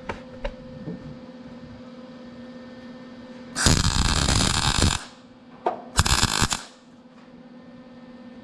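MIG welder laying plug welds into holes drilled through the top layer of sheet metal, replacing broken factory spot welds on an inner fender: a crackling burst of about a second and a half, then a shorter one about a second later, over a steady hum.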